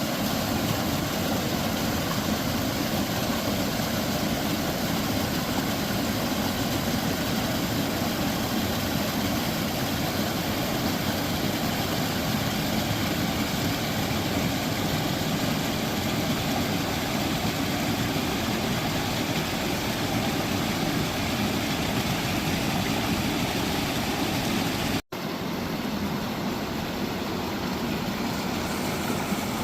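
Forest stream flowing, a steady rushing of water, with a momentary gap about 25 seconds in.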